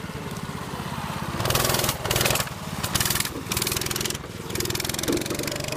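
Go-kart's Predator 212 single-cylinder four-stroke engine running under throttle, a rapid steady pulsing with louder stretches in the middle as it pulls the kart along.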